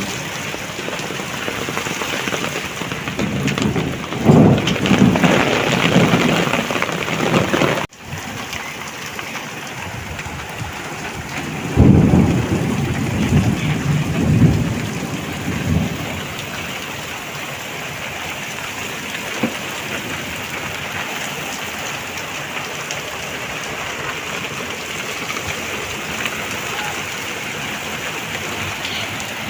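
Heavy rain falling steadily, with two rolls of thunder: one about four seconds in and one about twelve seconds in, each rumbling for three or four seconds. Near eight seconds the sound cuts out for an instant.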